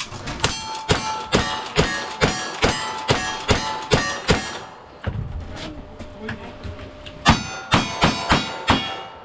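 Rapid gunfire on a timed shooting stage: a string of about a dozen shots at roughly two to three a second, a pause of a few seconds, then about five more quick shots. Many shots are followed by a ringing tone.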